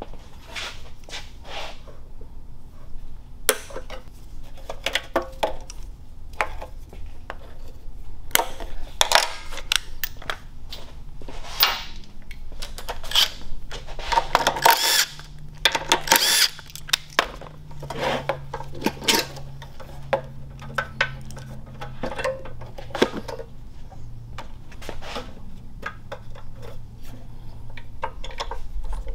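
Cordless impact wrench running in short spells to undo bolts, among clicks and knocks of metal parts and tools being handled.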